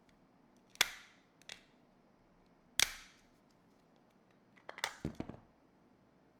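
Sharp clicks and knocks of the Echo Dot's plastic housing parts being handled and set down: a loud snap just under a second in, a smaller one soon after, another loud snap near three seconds, and a quick run of clicks near five seconds.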